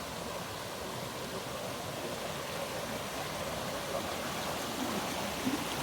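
Steady rush of flowing water from a stream or river.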